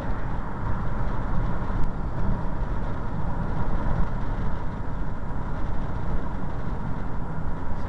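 Steady road and engine noise inside a car cruising at highway speed: a constant low rumble with a faint steady whine over it.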